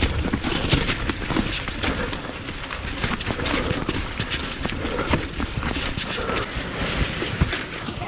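Mountain bike riding down a wet, muddy trail: steady tyre and wind noise with frequent rattling clicks and knocks from the chain and frame.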